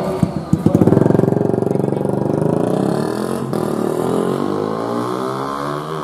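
Racing underbone motorcycle engines: one bike accelerates hard about half a second in and holds high revs, with other bikes' engines overlapping and their pitch sliding down as they pass.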